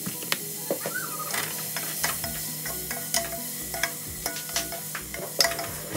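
Diced pork frying in a pot with a light sizzle, stirred with a slotted spoon that clicks and scrapes against the pot.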